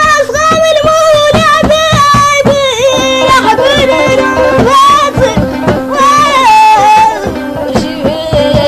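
Mauritanian traditional music: a singer holds long, ornamented notes over hand-drum strokes and a steady drone. The voice stops about seven seconds in while the drumming goes on.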